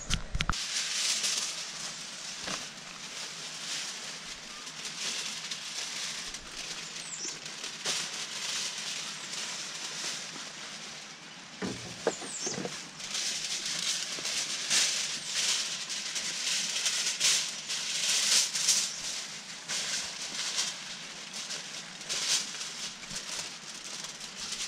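Aluminium foil crinkling and rustling as it is handled and folded around fish, an uneven run of sharp crackles with a few louder crunches.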